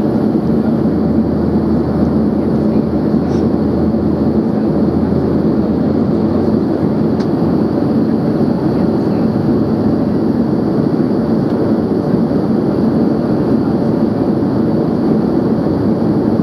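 Steady cabin roar of an Embraer ERJ-145XR regional jet in flight on approach, heard from inside the cabin: its rear-mounted Rolls-Royce AE 3007 turbofans and airflow over the fuselage, with a steady low hum running through it.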